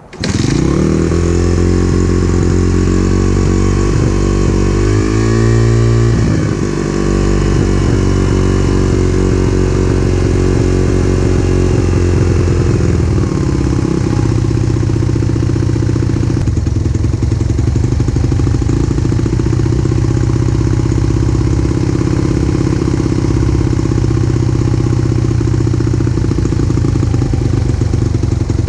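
A 2002 Honda XR100's air-cooled single-cylinder four-stroke engine catches at once on a kick-start and is revved up and down briefly about five seconds in. It then settles into a steady idle while the carburetor is adjusted. The engine is running lean and idling unevenly, starved of fuel because it is running on the reserve setting.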